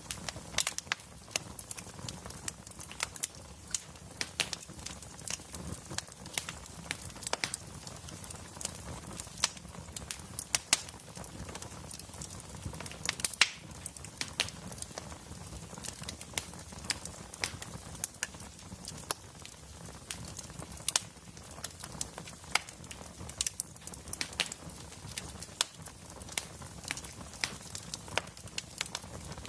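Wood fire burning in a fireplace: dense, irregular crackles and pops from the burning logs over a soft low rumble of the flames.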